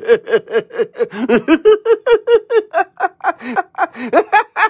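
A man's long maniacal cackle in the Joker's manner: rapid, even "ha-ha" pulses at about five a second, climbing higher in pitch in the second half.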